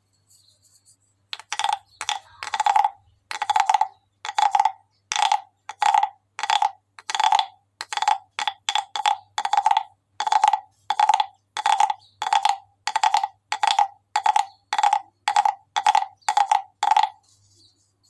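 Large carved wooden croaking frog, a frog-shaped guiro, with a wooden stick scraped along the ridges of its back. It gives repeated short rasping croaks, about one and a half a second, starting about a second and a half in.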